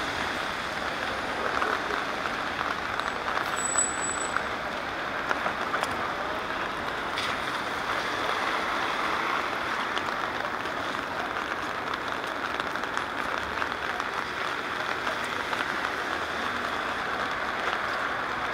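Steady rain pattering on a wet street and on the camera's rain cover, mixed with tyres hissing on the wet road as a van passes close at the start. A brief high chirp sounds about four seconds in.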